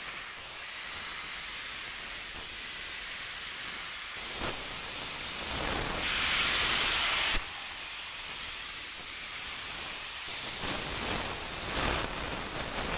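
Compressed air hissing from a gravity-feed paint spray gun spraying metallic basecoat onto a car door panel. About six seconds in, a louder, higher hiss lasts over a second and cuts off suddenly.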